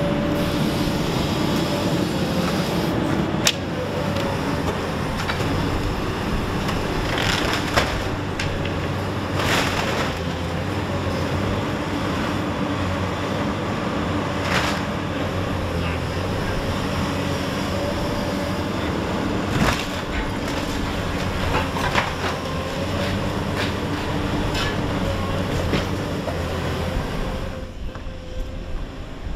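Tracked demolition excavator running steadily, its engine and hydraulics droning while the grab pulls down a brick house, with several sharp cracks and crashes of breaking masonry and timber spread through. The machine's drone drops away near the end.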